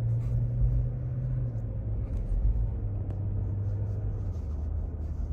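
Car driving, heard from inside the cabin: a steady low engine and road hum that drops in pitch twice, about a second and a half in and again near the end.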